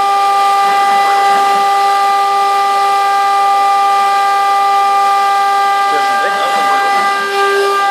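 Home-built CNC wood router running with a steady high whine, with the axis drives sweeping up and down in pitch as the gantry makes rapid moves, once about a second in and again near the end.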